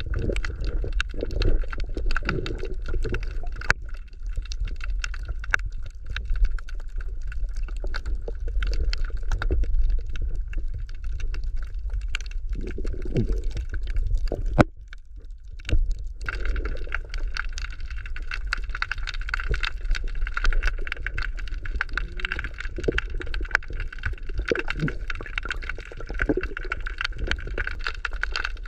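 Underwater sound picked up by a submerged camera: a low rumble of moving sea water with a constant crackle of small clicks and now and then a bubbling gurgle. The sound drops briefly about halfway through.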